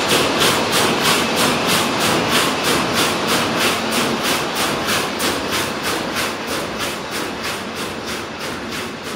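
Van de Wiele VTR33 carpet weaving loom running: a steady, rhythmic mechanical clatter of about four beats a second that slowly grows fainter.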